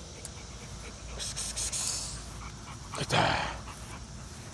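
Bully-breed dog panting, tired from a long tug-toy workout, with one louder, heavier breath about three seconds in.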